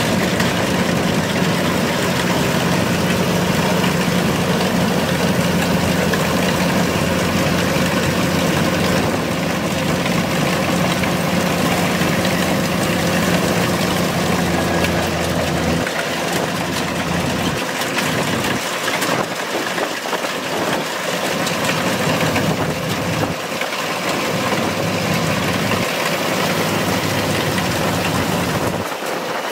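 Kubota DC-105X combine harvester's diesel engine running steadily under load while the machine cuts and threshes rice, a dense mechanical din. About halfway through the deep low hum thins out, leaving mostly the higher clatter and whir of the machinery.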